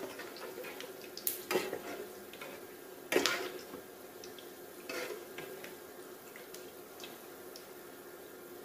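A metal spatula clattering against a frying pan and tray a few times, loudest about three seconds in, over a faint crackle of frying oil and a steady low hum.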